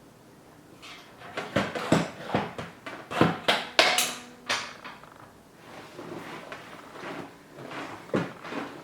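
Clicks and clunks of a newly assembled gaming chair being adjusted: a quick series of sharp knocks over a few seconds, then softer knocks and handling noise.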